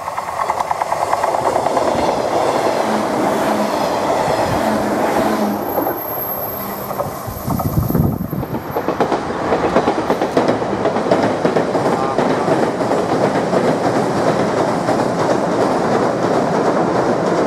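Electric commuter train passing close by on a curved track, wheels clattering over the rails. After a cut about eight seconds in, another electric train runs across a steel trestle viaduct with a steady clatter.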